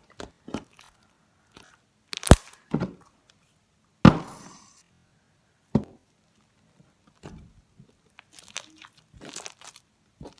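Sticky slime being kneaded and stretched by hand, giving scattered sharp pops and crackles, the loudest about four seconds in and a run of smaller ones near the end. The slime, worked with laundry detergent, is starting to stick less.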